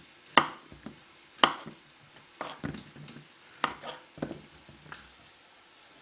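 Kitchen knife cutting through courgettes and striking a wooden cutting board: about eight sharp, separate knocks at uneven intervals, the loudest two in the first second and a half.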